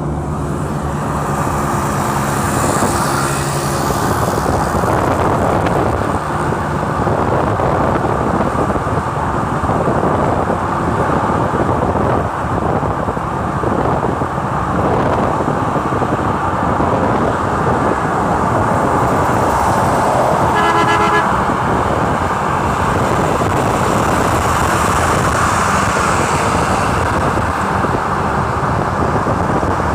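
Busy highway traffic: a steady rush of passing cars and trucks. A low engine drone sounds in the first few seconds, and a vehicle horn sounds briefly about two-thirds of the way in.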